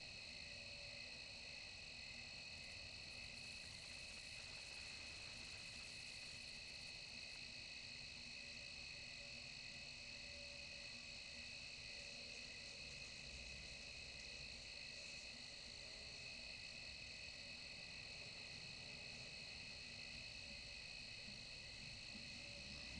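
Steady chorus of insects, several high pitches trilling together without a break.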